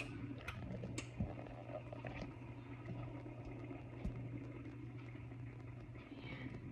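Oil and melted butter heating in a nonstick pan on an electric stove, giving a few faint, scattered crackles over a steady low hum.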